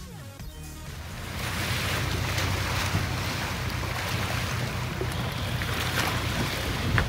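Wind buffeting the microphone over water rushing and splashing past the hull of a catamaran under way in a choppy sea, growing louder about a second in.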